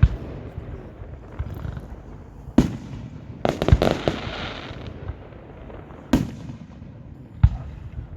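Aerial fireworks bursting overhead: sharp bangs every couple of seconds, with a quick run of pops in the middle.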